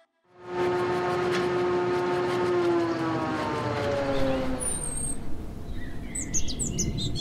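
A droning hum with several overtones and a fast ticking slowly falls in pitch for about four seconds and fades out. Birds chirp from about halfway through.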